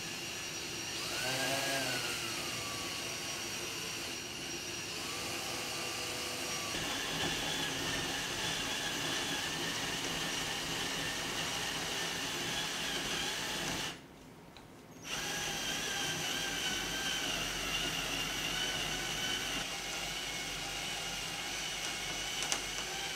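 Cordless drill turning a hole saw through the camper roof, cutting the wiring hole for a solar panel: a steady grinding whir, with a squeal that falls in pitch about a second in. The drill stops for about a second roughly two-thirds of the way through, then cuts on.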